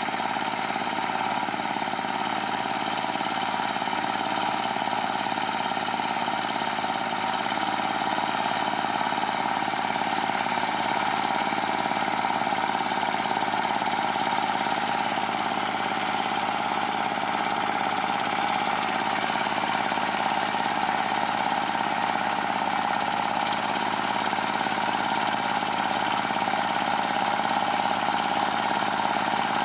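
Chinese D30 diesel engine of a water-channel digging machine running steadily under load while it cuts a channel through a wet rice field.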